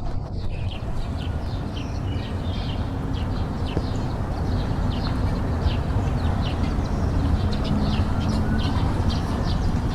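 Small birds chirping in many short high calls over a steady low rumble.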